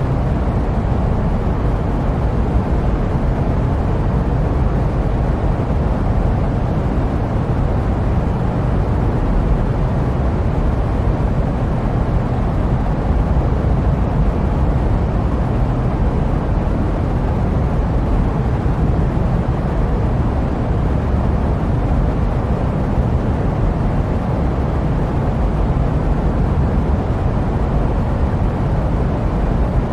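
Steady jet airplane noise: an even, unchanging low rumble with a softer hiss above it.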